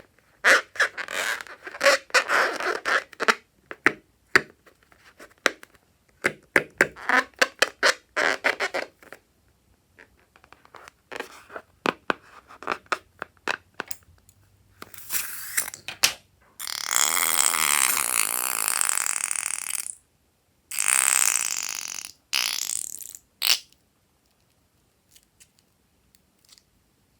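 Slime being worked: bursts of sticky crackling and clicking for several seconds. Later comes a few seconds of steady rushing hiss with a fluttering edge, air let out of a balloon, in three runs.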